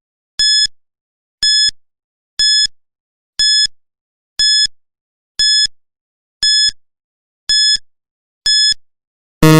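Quiz countdown timer sound effect: short high electronic beeps, one each second, nine in a row, ending near the end with a louder, lower buzzer tone as time runs out.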